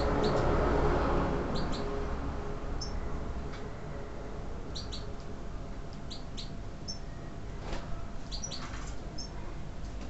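Captive goldfinches of the large 'major' race (Siberian goldfinch) giving short high chirps, often two in quick succession, every second or so. A low rumble underneath is loudest in the first two seconds.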